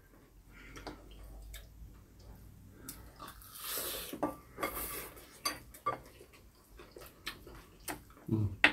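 Spoons and chopsticks clicking and scraping against ceramic rice bowls, in scattered light taps as rice is scooped and mixed.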